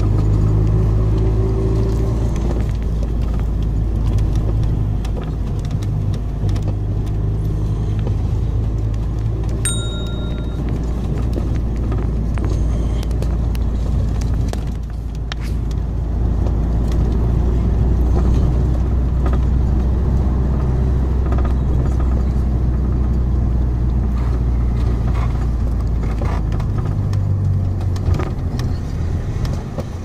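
Steady low rumble of a moving road vehicle, its engine droning with a pitch that shifts a few times as it drives, with faint rattles over it.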